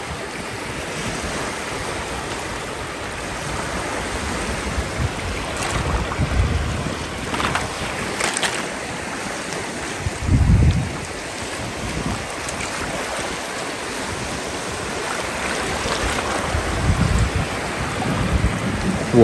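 Small waves washing over a sandy beach in the shallows: a steady hiss of moving water with a few brief swishes and splashes, and a few low rumbles along the way.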